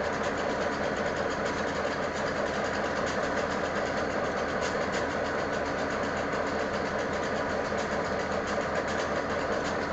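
Diesel freight locomotives idling, a steady engine sound that holds at one level without revving up or down.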